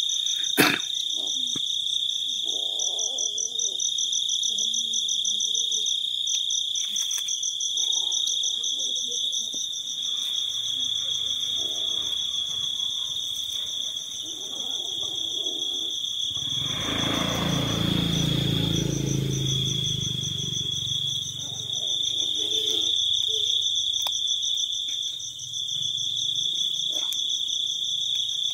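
Crickets chirping in a steady night chorus, one high trilling line over another. There is a sharp click about half a second in, and a low rumbling noise for a few seconds around the middle.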